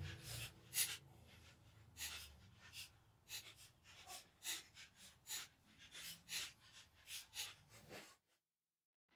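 A wrench working the connecting-rod nuts of a Chevy 350 short block: a run of light, irregular clicks, several a second, ending about a second before the end.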